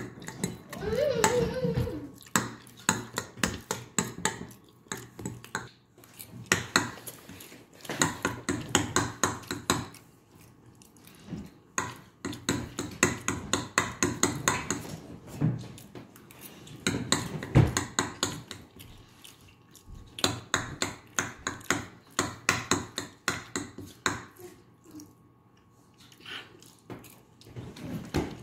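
Close-up eating sounds: a metal fork clinking and scraping in a bowl of macaroni, with chewing, in bursts of many quick clicks separated by short lulls.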